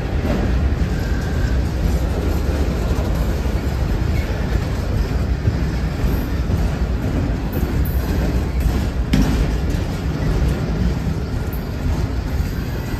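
Autorack cars of a BNSF freight train rolling past close by: a steady low rumble of wheels on rail, with one sharper knock about nine seconds in.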